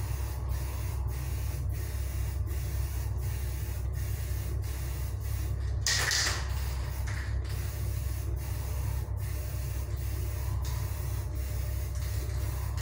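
Aerosol spray can of 1K clear lacquer spraying, a steady hiss with a louder burst about six seconds in, over a steady low hum.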